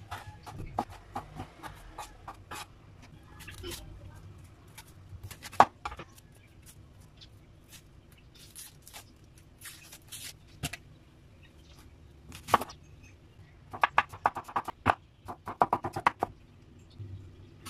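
Kitchen knife cutting tomatoes and onion on a wooden cutting board: scattered sharp knocks of the blade on the board, with quick runs of chopping taps near the end.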